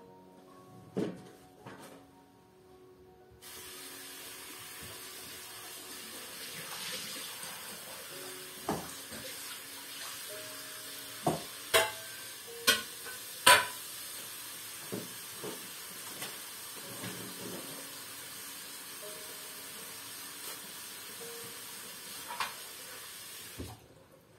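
Steady rushing hiss of running water, switched on suddenly a few seconds in and cut off near the end, with a handful of sharp knocks and clatters of objects being handled in the middle.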